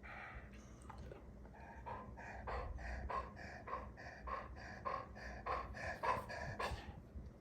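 Chocolate Labrador retriever panting in a steady rhythm, about two breaths a second.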